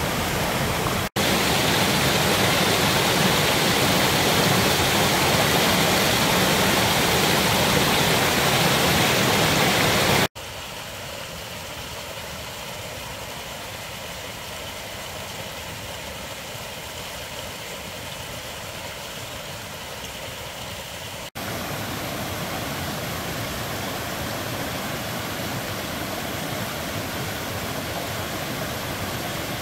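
Mountain stream running and splashing over rocks after a rain shower, a steady rush of water. It breaks off abruptly a few times: loud at first, much quieter from about ten seconds in where a small trickle runs through a gully, then louder again from about twenty-one seconds.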